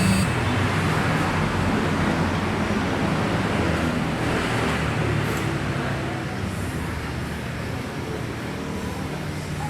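Small scooter engine running steadily, easing off slightly in the second half.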